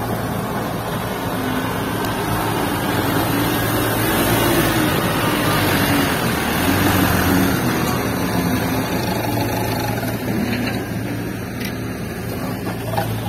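Diesel engine of a fully loaded light dump truck working hard as it pulls away over rough, muddy ground, its revs rising and falling, loudest about halfway through as it passes close by.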